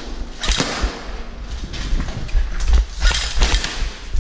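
Airsoft rifle firing repeatedly at balloons, a string of sharp pops and cracks at irregular intervals as shots are fired and balloons burst, with low thumps underneath.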